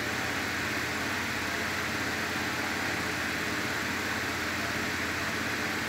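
Steady background hiss with a low hum underneath, unchanging throughout, with no distinct knife strokes or other sudden sounds standing out.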